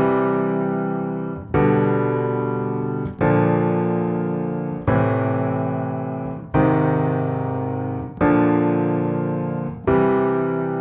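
Slow piano music: sustained chords struck about every second and a half, each one left to fade before the next.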